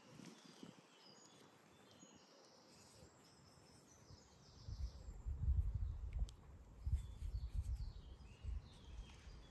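Faint birdsong in woodland. From about halfway through, a low, uneven buffeting rumble on the microphone becomes the loudest sound, with a few light clicks.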